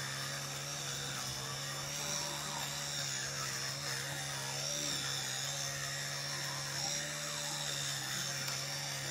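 Child's electric toothbrush buzzing steadily while brushing teeth, its hum wavering slightly as the head moves in the mouth.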